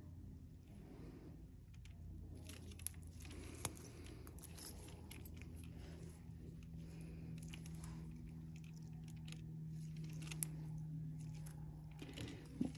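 Faint clicks and rustles of steel surgical instruments and gloved hands while suturing a skin closure, with a few sharper ticks about three, four and ten seconds in, over a steady low hum.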